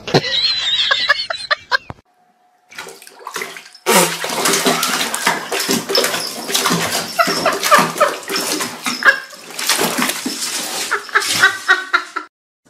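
Water running and splashing in a bathtub that a kitten is standing in: a dense rush with many small splashes, starting about four seconds in and cutting off suddenly near the end.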